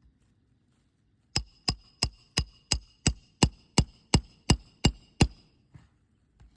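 Roofing hammer striking a steel roof snake about a dozen times in a steady run of roughly three blows a second, each blow with a short metallic ring, driving a shingle nail back in under a lifted three-tab shingle.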